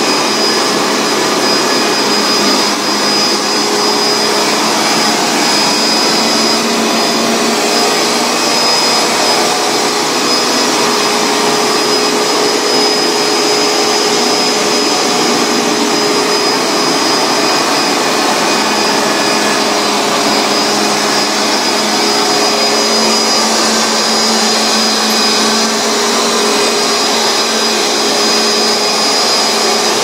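Hoover Max Extract All-Terrain carpet cleaner running steadily on carpet: its loud suction motor drones with a steady high whistle over it as the machine is worked over the carpet.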